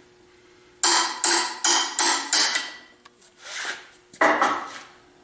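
Hammer blows on steel: five quick strikes about 0.4 s apart, then two more after a short pause. They are working a tight key loose from the crankshaft of an Ingersoll Rand 2545 air compressor pump.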